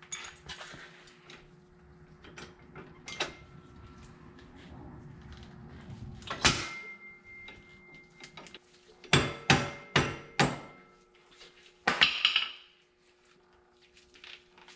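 Metal clanks and knocks from steel parts and hand tools being worked on a tractor's rear three-point hitch linkage. Scattered light knocks, a loud clank about halfway through, a run of four sharp strikes shortly after, and another clank near the end, over a faint steady hum.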